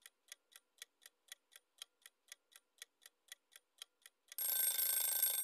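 Countdown-timer sound effect: a clock ticking faintly and evenly, about four ticks a second. A little past four seconds in, a louder ringing alarm takes over for about a second and cuts off sharply, signalling that the time is up.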